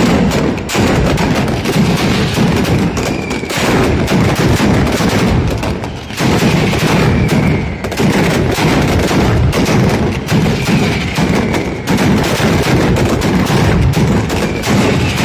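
Mascletà firecracker barrage: masclets and firecrackers banging in a dense, unbroken rattle. A falling whistle cuts through now and then.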